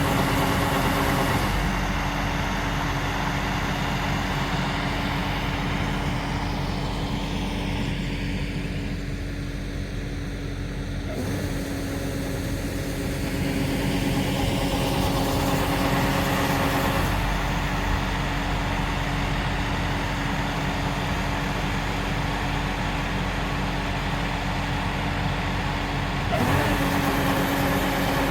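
LOVOL RG130 EVO combine harvester running steadily, its engine giving a strong steady hum with a hiss of machinery above it; the sound shifts abruptly a few times.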